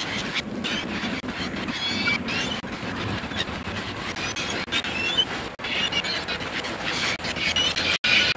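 Many short, high chirps and twitters, like a chorus of small birds, over a low steady background murmur.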